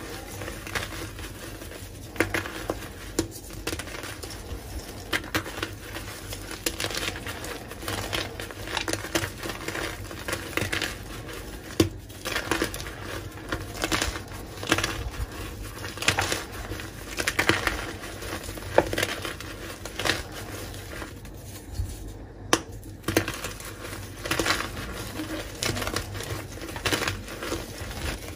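Hands crushing and crumbling blocks of reformed gym chalk: an uneven run of dry crunches and crackles as the blocks break apart and powder spills.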